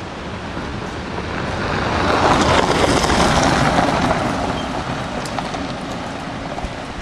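A car driving past on a gravel road: its tyre and engine noise swells, peaks as it passes about three seconds in, then fades as it moves away.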